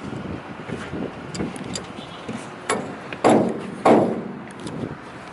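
A tornado siren being tapped into place with a short piece of lumber: three hard knocks, each a little over half a second apart, each with a short ringing tail, amid lighter knocks and handling noise.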